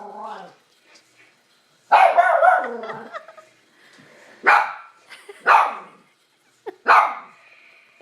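Dog barking: a longer, loud outburst about two seconds in, then three single sharp barks roughly a second apart.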